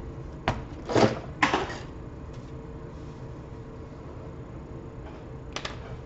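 Laptop being handled on a desk: three knocks and clatters in the first two seconds as it is set down and its lid opened, then a pair of quick clicks near the end as the charger and its cord are picked up. A faint steady hum runs underneath.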